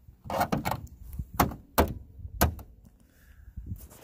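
Plastic BMW E46 kidney grilles being pressed by hand into the grille openings, snapping home with several sharp clicks and thunks. The clicks come in the first two and a half seconds.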